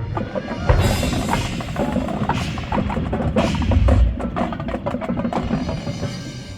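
Marching band percussion playing a busy passage of sharp strikes and drum hits, with a heavy low drum hit about four seconds in. The hits thin out near the end into quieter ringing tones.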